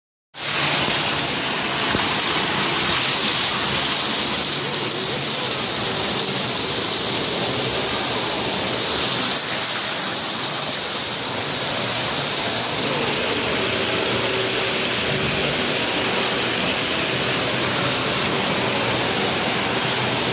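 Fountain water pouring steadily into its basin: a constant splashing rush.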